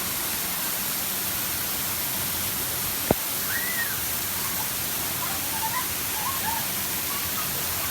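Waterfall crashing as a steady, even rush of water. A single sharp click cuts through about three seconds in.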